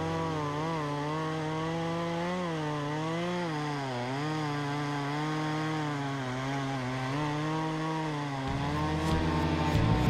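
Two-stroke chainsaw running at high revs while cutting through a red oak limb. Its pitch sags and recovers again and again as the chain loads up in the cut. About eight and a half seconds in, guitar music comes in over it.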